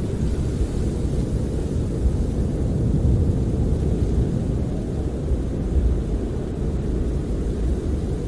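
Snowstorm wind blowing against a camper, heard from inside as a steady low rumble with a faint hiss above it, swelling a little in gusts.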